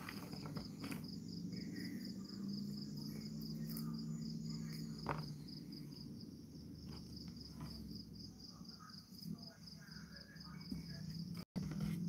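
Cricket chirping steadily, a fast, even train of pulses. A low hum comes in for a few seconds in the middle, with a single click about five seconds in.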